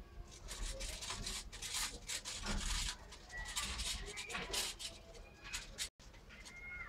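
Dry, scratchy rustling and light clicks of movement on bark-chip bedding, uneven and stop-start, with a few faint short high chirps.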